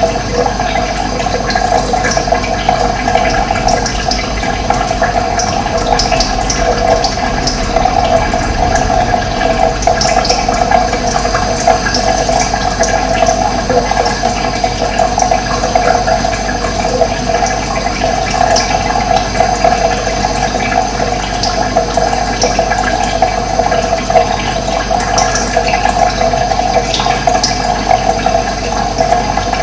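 Steady babble of running water, with brief high bird chirps scattered through it.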